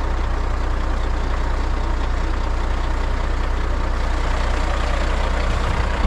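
Grain truck engine idling steadily with a low drone.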